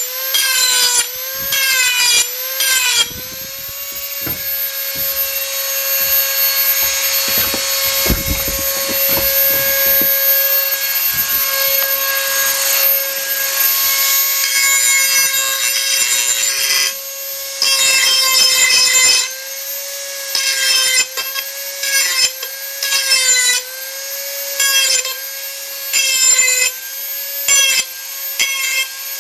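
Dremel 4000 rotary tool grinding an edge on a steel garden hoe: a high motor whine whose pitch dips briefly each time the wheel is pressed to the metal, with gritty grinding noise that comes and goes.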